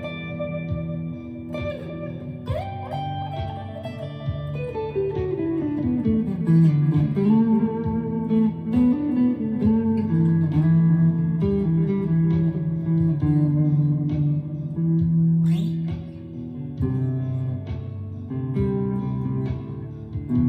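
Chapman ML3 Pro Traditional electric guitar with Seymour Duncan Hot Tele pickups played slowly in an ambient style, picked notes and chords ringing on and overlapping. A descending run of notes comes about four seconds in.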